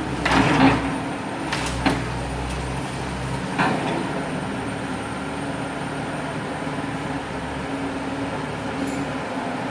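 Long-boom excavator's diesel engine running steadily, with a few clanks in the first four seconds, the loudest at the very start.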